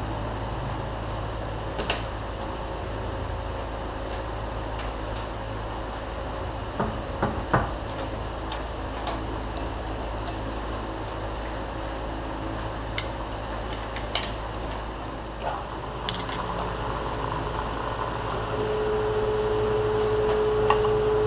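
Metal clinks and knocks from a steel strap clamp and tools being handled on a milling machine table, over a steady machine-shop hum. Near the end the mill's spindle drills into the steel roller, adding a steady tone and a rise in level.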